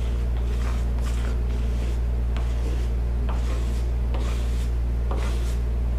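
Soft, irregular swishes of a hand squeegee rubbing camouflage vinyl wrap down onto a Jeep body panel, over a steady low hum that is the loudest sound throughout.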